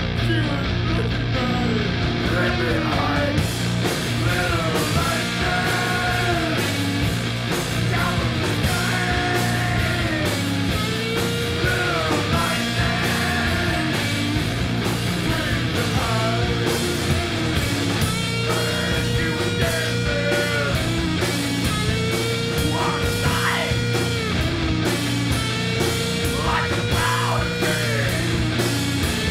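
Rock band music: guitars, bass and drums with a steady beat, under a lead melody line that slides up and down in pitch.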